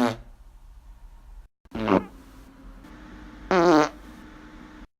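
Three short farts in quick succession, each a pitched blast with a wavering pitch lasting under half a second: one right at the start, one about two seconds in, and a longer one about three and a half seconds in.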